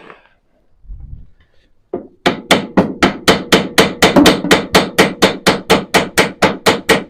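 Hammer beating on the steel steering linkage in fast, even blows, about four a second, starting about two seconds in. Each strike rings briefly, the sound of trying to knock a seized track rod end loose from its taper.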